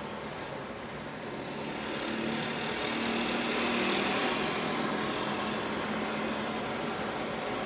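ATR twin-turboprop airliner's engines at takeoff power during its takeoff roll, a steady hum with a low droning tone. It swells to its loudest about four seconds in as the aircraft passes, then slowly fades.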